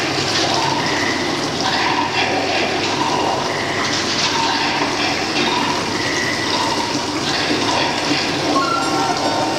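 Water poured in a steady stream from galvanised metal buckets into other metal buckets, splashing continuously. Scattered short high notes sound over it.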